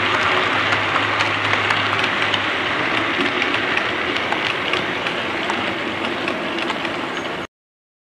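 Model trains running on a layout's track: a steady whirring rattle of wheels and motors with scattered light clicks, cutting off suddenly near the end.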